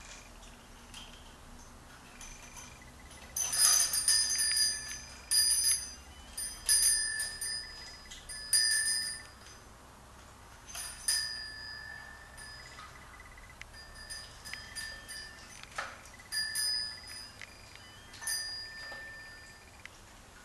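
Small metal bell on a hanging parrot toy rung over and over as young African grey parrots peck and tug at it. The result is a series of bright, ringing metallic strikes, busiest from about three to nine seconds in and sparser after that.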